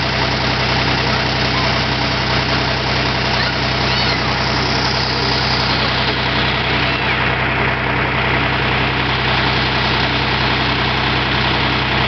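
John Deere 350C crawler dozer's engine running steadily at idle.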